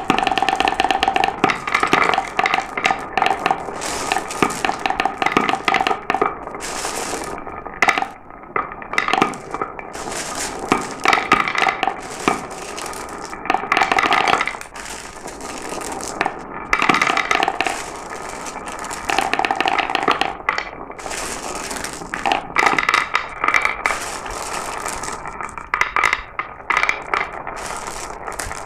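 Glass marbles rolling and clattering down a marble run: a dense, continuous stream of clicks and rattles, with a rolling whir that swells and fades several times.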